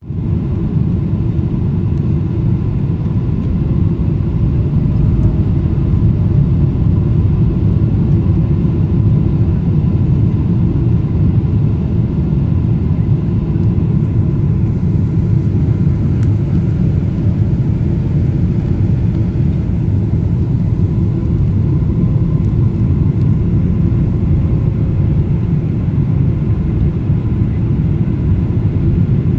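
Airliner cabin noise on approach with the flaps extended: a steady low rumble of the jet engines and airflow, with a faint steady whine above it.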